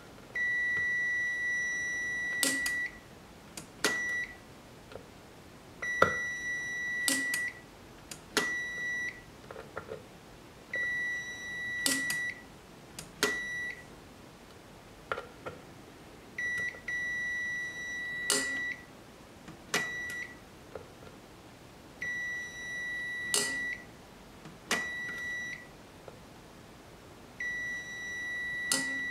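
Digital multimeter's continuity beeper giving about a dozen high, steady-pitched beeps, long ones of a couple of seconds alternating with short ones. Each beep means a speaker relay is closed and the amp input is connected to that speaker output. Sharp clicks come between the beeps.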